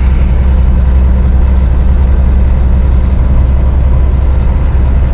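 Steady low drone inside a semi-truck cab at highway speed: the diesel engine and road noise running evenly.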